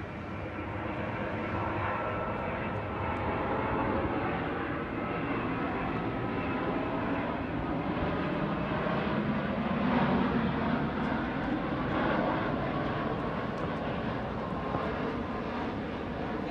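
Jet airliner on its landing approach passing low overhead. The engine noise builds to its loudest about ten seconds in, then slowly fades as it moves away.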